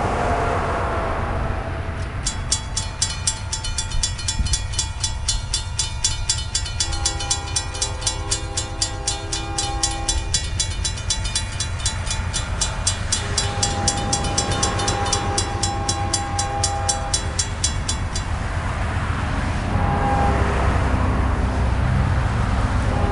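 Railroad crossing bell ringing rapidly and evenly from about two seconds in, stopping after about sixteen seconds, while the gates lower. The approaching CSX freight locomotive's horn sounds in several blasts over it: two long ones, a short one, and another starting near the end.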